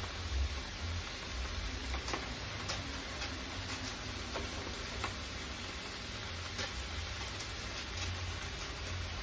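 Cabbage frying in bacon and sausage fat in a large pot: a steady sizzle with scattered crackles.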